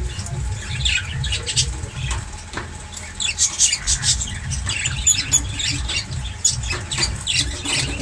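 Caged parrots chirping and squawking: many short, sharp high calls overlapping, over a low rumble.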